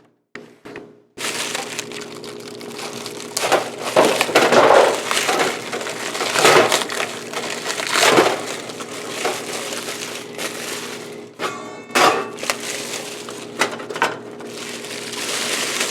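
Plastic wrapping on a frozen pizza crinkling and crackling irregularly as it is handled and unwrapped, over a faint steady hum.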